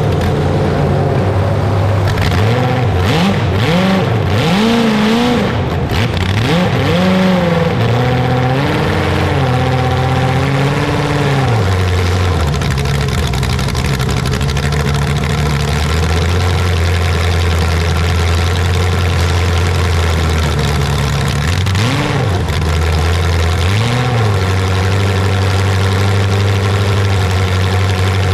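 A large engine revved up and down several times, then settling into a steady idle, with two short blips of the throttle near the end.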